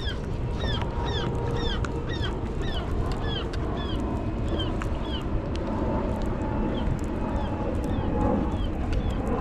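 A spinning fishing reel squeaking with each turn of the handle as a hooked fish is reeled in. The squeaks fall in pitch, come at about two to three a second and grow fainter in the second half, over a steady rush of wind and surf.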